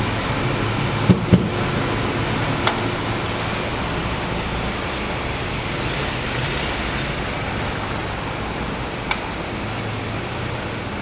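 Stick-welding arc with a 3.2 mm rod at 95 amps: a steady hiss with a few sharp crackles and pops.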